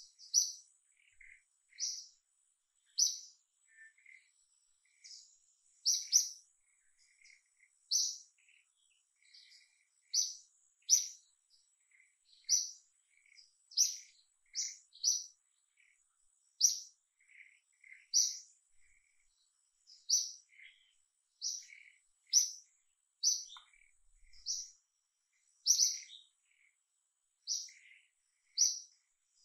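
A bird chirping over and over: short, high, sharp chirps, a loud one roughly every second or two, with fainter lower chirps in between.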